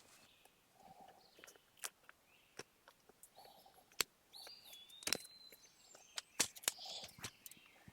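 Faint outdoor ambience of scattered sharp clicks and taps at irregular intervals, with a short, flat bird whistle about four and a half seconds in.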